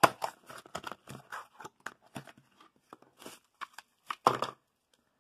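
Hands handling a LiPo battery pack: a string of irregular light rustles and clicks, with a louder rustle about four seconds in.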